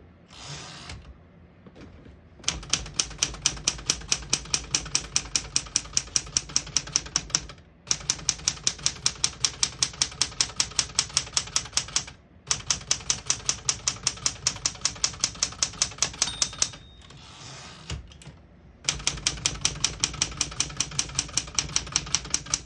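1975 Smith-Corona Galaxie Twelve manual typewriter being typed on: fast, even runs of key strikes with short pauses between the runs.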